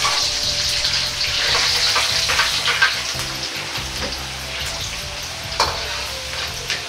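Green beans oil-blanched in hot oil, about 170 °C, in a wok: a dense crackling sizzle that slowly dies down as the beans fry. A metal ladle stirs them, with two sharp clicks against the wok.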